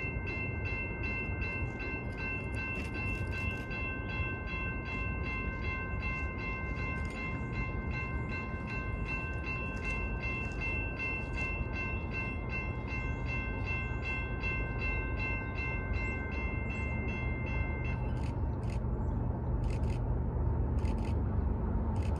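Railroad grade-crossing warning bell ringing, about two to three dings a second, stopping about 18 seconds in, over a low steady rumble.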